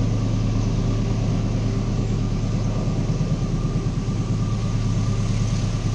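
KAI CC 206 (GE C20EMP) diesel-electric locomotive's engine running with a steady low drone as it approaches.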